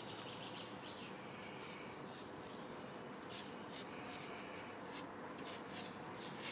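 Faint birdsong: many short high chirps, a few of them drawn out into longer notes.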